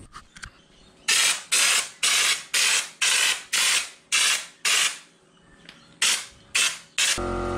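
Bottle-fed undercoating spray gun run off an air compressor, spraying Bully Liner bedliner coating in short trigger pulls. Each pull is a sharp hiss of air and coating lasting a fraction of a second, about two a second: eight pulls, a pause, then three more.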